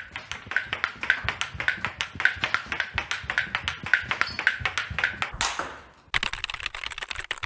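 Table tennis ball in a fast rally: rapid clicks of paddle strikes and bounces on the table, with a ringing ping about twice a second. About five and a half seconds in comes a brief rush of noise, then a short pause before the hitting resumes.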